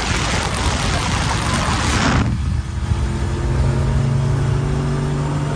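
Turbocharged pickup truck accelerating hard at full throttle, heard from inside the cab: a loud rushing roar that cuts off suddenly about two seconds in, followed by a steady engine drone.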